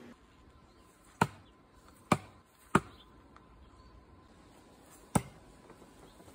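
Thrown knives striking a wooden target: four sharp knocks, three in quick succession about a second in and one more near the end.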